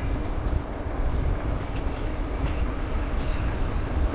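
Bicycle riding along a paved street, heard from a handlebar-mounted camera: a steady low rumble of wind and tyre noise with a few light clicks and rattles from the bike.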